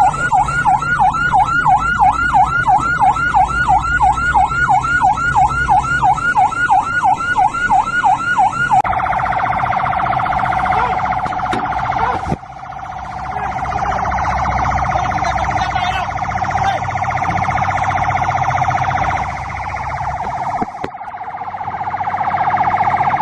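Electronic siren of a fisheries patrol vessel in a fast yelp, about three rising-falling sweeps a second. About nine seconds in it switches to a rapid, steady warble.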